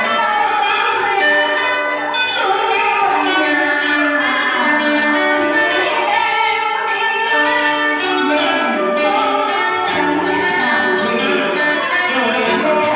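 Music with a singing voice over instrumental accompaniment, steady throughout.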